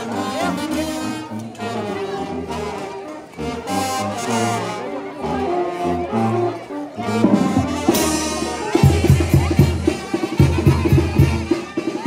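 Brass band (banda) playing a tune of held, stepping brass notes; about three-quarters of the way through, the drums come in hard with a steady, rapid beat under the horns.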